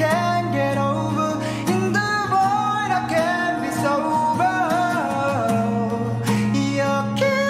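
A male voice sings a slow, bending melody over strummed acoustic guitar.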